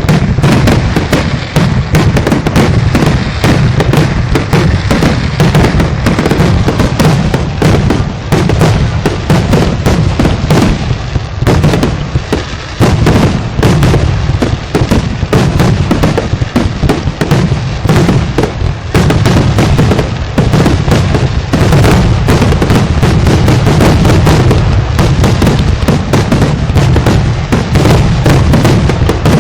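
Fireworks display: a dense, continuous barrage of shell bursts and crackle, briefly thinning about twelve seconds in.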